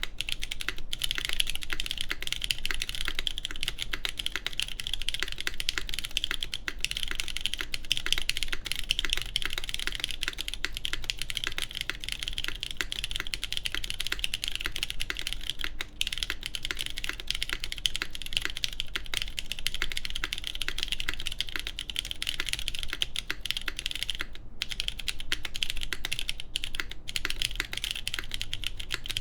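Continuous fast typing on a Tech Bear TB8-TKL mechanical keyboard with lubed JWK Cotton Candy linear switches and GMK Arctic keycaps on an aluminium plate with no foam: a dense run of quick keystroke clacks with only brief pauses.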